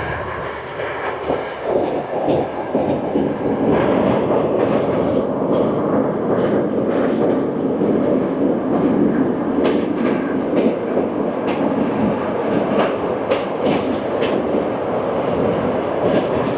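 Passenger train running along the line, heard from on board: a steady rumble of wheels on rails with irregular clicks over the rail joints, more frequent in the second half.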